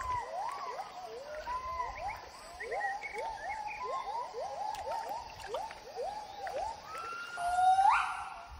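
Gibbon song: a fast run of short rising whooping notes, about two to three a second, ending in a louder, longer call near the end.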